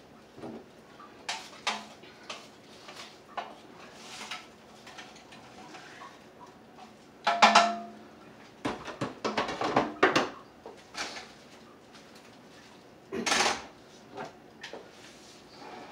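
Clatter of cookware and utensils: scattered knocks and clinks of pots, pans and tongs. The loudest is a ringing metal clang about seven and a half seconds in, followed by a run of quick clinks and scrapes and another knock near the end.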